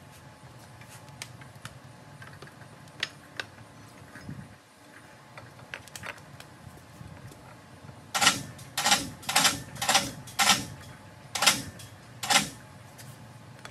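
Electric chain hoist jogged in short bursts, lowering the hanging Model A rear axle and torque tube: a few faint clicks at first, then about eight loud, short runs of the hoist motor in quick succession over the second half.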